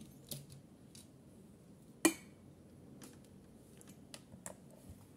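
Faint clicks and taps from handling multimeter test leads and probes, with one sharper click about two seconds in.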